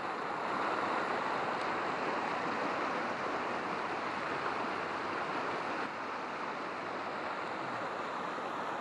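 Stream water rushing and splashing in white-water rapids over a rocky ledge: a steady, even rush of water.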